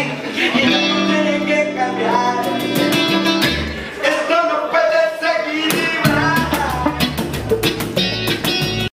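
Live acoustic band playing: strummed acoustic guitar with a singer's voice and sharp percussive strokes. The sound cuts off suddenly near the end.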